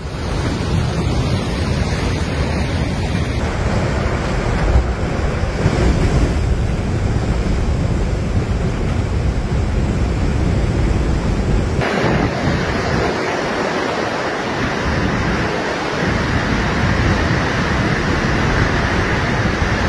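Loud, steady rushing of floodwater, with wind buffeting the microphone. The sound changes abruptly about 3 seconds and 12 seconds in, where the footage cuts between shots.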